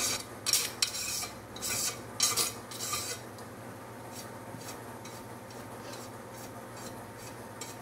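A razor blade scraping dried paint resist off sandblasted glass in a quick run of short strokes. About three seconds in, this gives way to a bench brush sweeping the loosened paint flakes off the glass, much more softly.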